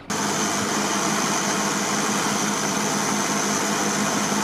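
Fishing boat under way: a steady engine drone under the loud rush of its churning wake.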